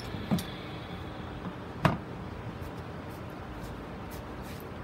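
Two knocks about one and a half seconds apart, the second the louder: a plastic grid mounting board carrying a moss-wrapped staghorn fern being turned and set down on a plastic bucket lid. Steady background noise throughout.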